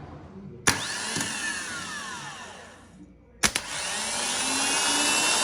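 Diesel Nissan Frontier starter motor bench-tested twice: each time it clicks in and spins up with a high whine, the Bendix drive thrown forward and turning. The first run, about a second in, winds down and falls in pitch; the second, from about three and a half seconds in, keeps running steadily. The starter had been slipping when cranking the engine.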